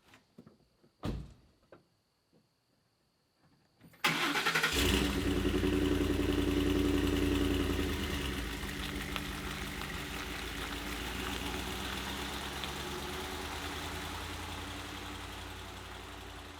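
A vehicle engine cranks and catches about four seconds in, then runs at raised revs that slowly settle toward an idle. A single thud comes about a second in, before the start.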